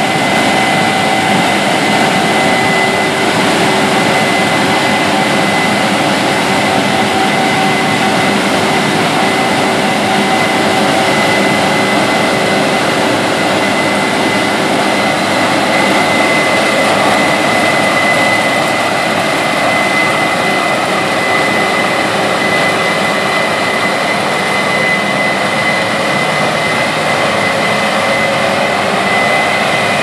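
Case IH 9240 Axial-Flow combine harvesting corn with its 16-row corn head: the 550 hp engine and threshing machinery run steadily under load, with a steady high whine over the noise.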